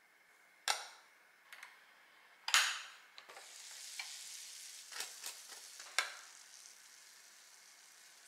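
Metal kitchen tongs clacking against a waffle maker's plates, with one louder clack about two and a half seconds in. Then a soft, steady sizzle from butter-baked croffles in the open waffle iron, with a few tong clicks as they are lifted onto a ceramic plate.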